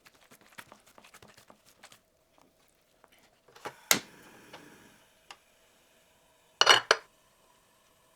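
Kitchen utensils and dishes knocking and clattering. Light faint ticks come first, then a sharp knock about four seconds in, and a louder ringing clatter near the seventh second.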